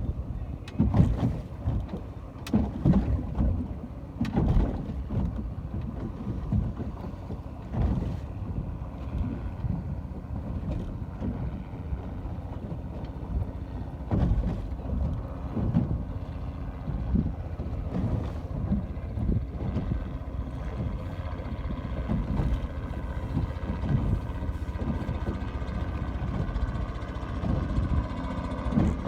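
Wind buffeting the microphone over ocean water, in uneven gusts. A faint steady motor hum comes in about halfway through.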